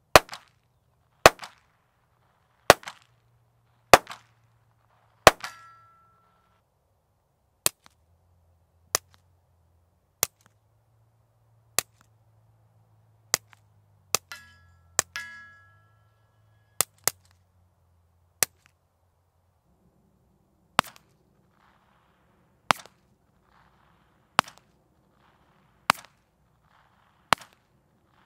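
Single shots from a .22 LR pistol firing Gemtech subsonic 40-grain ammunition, spaced about one to one and a half seconds apart. The first five are unsuppressed and the loudest, and are followed by about ten quieter shots through an AB Suppressor Little Bird, a couple of them with a short metallic ring after. Five more shots come near the end over a steady background noise.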